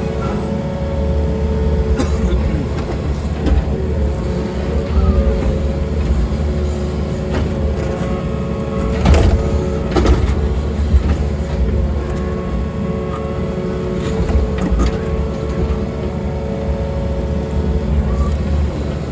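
Excavator digging a trench: the diesel engine runs steadily with a deep rumble, and a few sharp knocks and scrapes stand out, the loudest about nine and ten seconds in.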